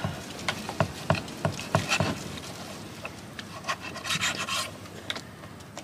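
Kitchen knife chopping through a cleaned sea cucumber onto a wooden cutting board: quick knocks about three a second, then sparser strokes and a short scrape of the blade on the wood.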